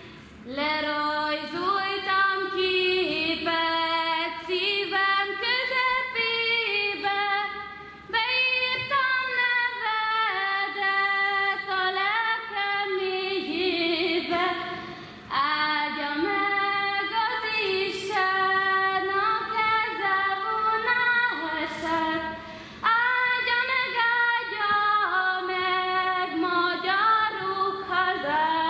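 A young woman singing solo and unaccompanied into a microphone, in long melodic phrases with short breaks for breath between them.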